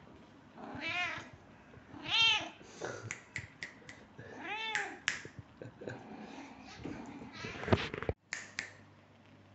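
Domestic cat meowing three times, each call rising then falling in pitch, with a few sharp clicks in between.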